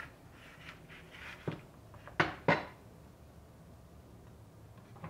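Cleaver chopping green bell pepper into rings on a wooden cutting board: a few light knocks of the blade, then two sharp, louder knocks about two seconds in, a third of a second apart.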